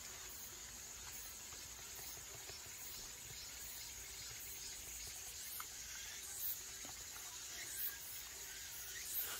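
A steady, high-pitched drone of insects runs throughout. Over it come a few short smacking and chewing sounds from dogs eating cherry tomatoes from a hand: about two-thirds of the way in, again a little later, and near the end.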